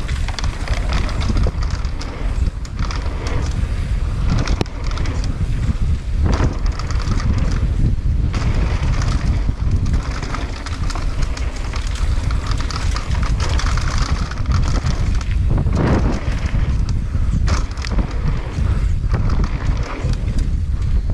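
Mountain bike riding fast down a dirt trail, heard from a camera on the bike: wind rushing over the microphone, with tyres rolling on dirt and the bike clattering and knocking over bumps.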